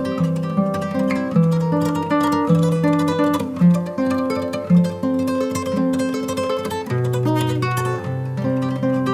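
Background music led by plucked acoustic guitar, with a bass line stepping between notes.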